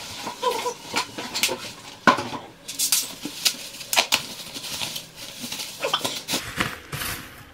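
Packing paper and a cardboard box being handled: irregular rustling and crinkling with sharp crackles, the loudest about two and four seconds in.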